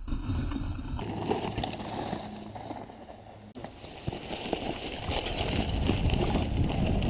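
Mountain bike riding down a dirt trail covered in fallen leaves: tyre and trail noise with the rattle of the bike, getting louder toward the end as the ride speeds up.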